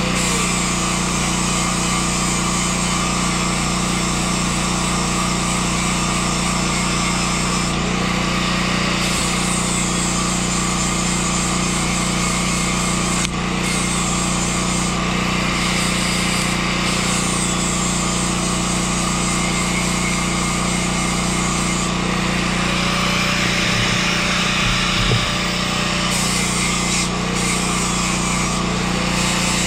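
Electric grinder running continuously against steel, a steady loud whine and rasp.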